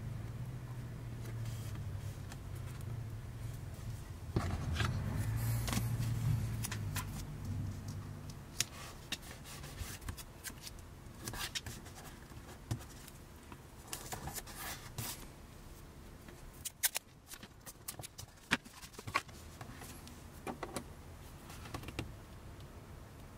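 Hands handling paper card and a sheet of carbon-fibre-pattern vinyl on a cutting mat: scattered rustles, taps and small sharp clicks. A low steady hum sits under the first several seconds and stops about eight seconds in.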